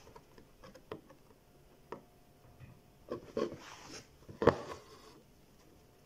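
Hand embroidery in a hoop: a needle and sewing thread worked through taut fabric in back stitch, with light clicks and a soft hiss of thread drawn through the cloth around three to four seconds in. A sharp knock about four and a half seconds in is the loudest sound.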